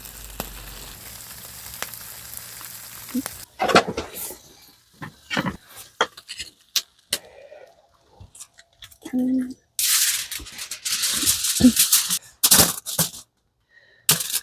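Camp cooking and food-handling sounds. A steady hiss for the first few seconds, then scattered clinks and scrapes of utensils, and loud rustling bursts near the end.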